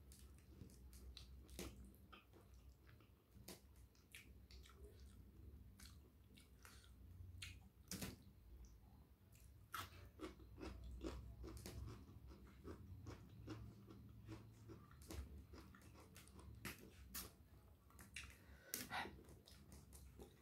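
Faint close-miked chewing and mouth smacks of someone eating rice by hand: a steady run of small wet clicks, thickest after a mouthful goes in about ten seconds in.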